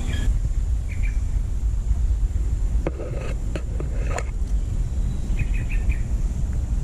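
Rainforest ambience: scattered short bird chirps, with a quick run of about four chirps near the end. Under them runs a thin, steady high tone and a constant low rumble.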